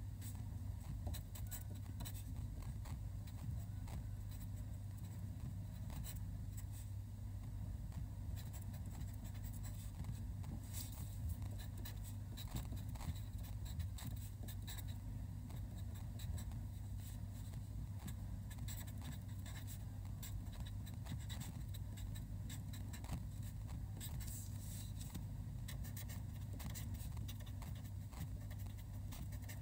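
Marker pen writing Chinese characters by hand on paper: short, irregular scratches and taps of the felt tip as each stroke is made, over a steady low hum.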